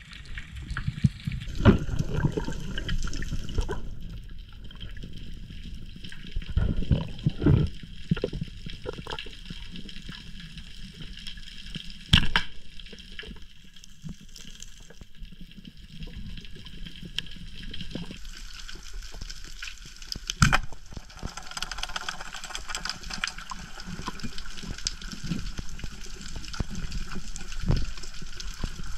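Underwater noise picked up by a diving camera: a steady rushing hiss of water with low surges, broken by a few sharp knocks, the loudest about twelve and twenty seconds in.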